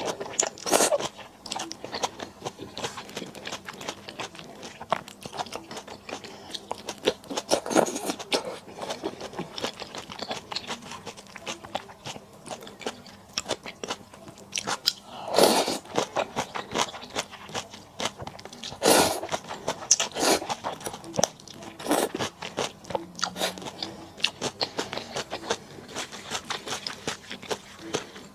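Close-miked eating sounds: a person biting and chewing food with wet, crunchy, irregular clicks and crackles, plus a few louder, longer bites or slurps.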